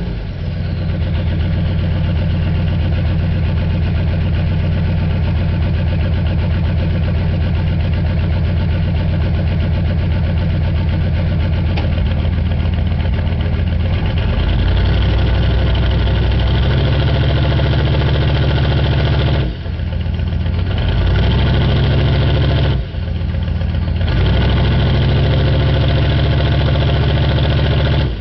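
A 6.5-litre V8 diesel idling cold after a start without its block heater plugged in, heard close to the tailpipe. A steady, loud idle; its note shifts a little about two-thirds of the way through, and the sound dips briefly twice near the end.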